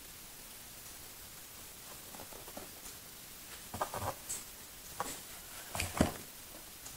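Packaging being handled while a battery charger is unboxed: scattered rustles, taps and light knocks over a steady hiss, growing busier about four seconds in, with the loudest knock about six seconds in.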